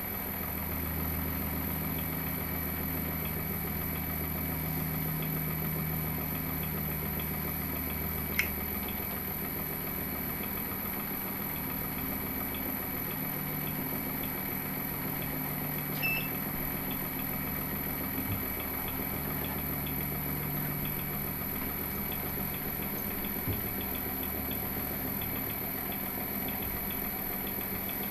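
A machine tool's electric motor runs with a steady hum. A sharp metallic click comes about eight seconds in, and a short ringing ping about sixteen seconds in.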